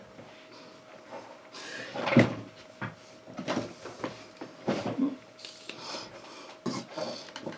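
A few irregular short knocks and rustles, the loudest about two seconds in, over a faint steady hum.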